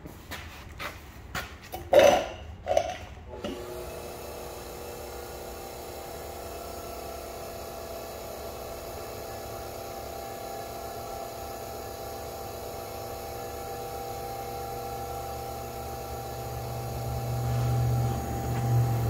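A few knocks and clicks of metal being handled, then a small electric motor running with a steady whine, likely the motor that turns the chuck holding the auger shank. A low hum swells in near the end.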